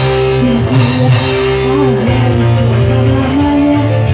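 Loud live band music played through a PA system: a heavy bass line under a held, wavering melody, with a woman singing into a microphone.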